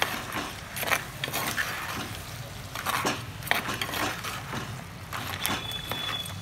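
A spoon stirring spiced crab masala in a clay cooking pot, giving irregular scrapes and knocks against the pot.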